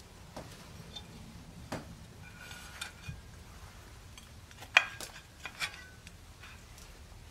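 Light metallic clinks and taps as a thin tin cake mould is peeled off a baked cake and handled over a pewter plate. A few separate clinks, two of them ringing briefly, the loudest a sharp clink about five seconds in.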